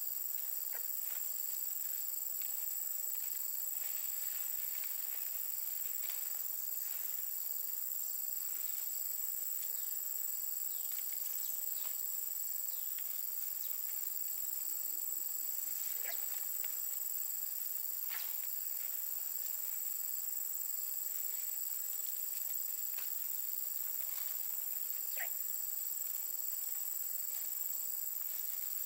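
Steady high-pitched insect chorus, with faint scattered rustles and light taps from palm-leaf thatch being handled on a bamboo roof frame.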